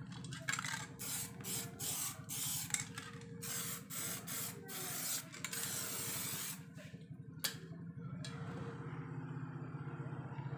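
Aerosol spray-paint can hissing in a series of short bursts as paint is sprayed onto a motorcycle wheel rim, stopping about six and a half seconds in. A steady low hum runs underneath.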